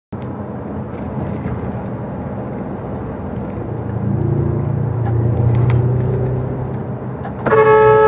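Steady engine and road noise from a large vehicle, likely a trailer truck, cruising on an expressway, the engine drone growing louder in the middle. Near the end a loud horn blast starts, a warning to a car that has pulled into its path.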